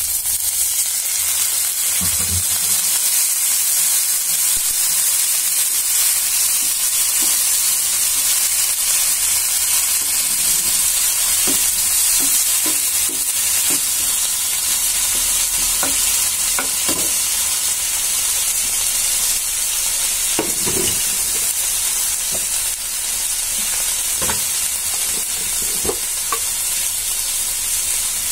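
Onions, green chillies and turmeric sizzling steadily in hot oil in a nonstick frying pan, with a few scattered knocks and scrapes of a wooden spatula stirring them.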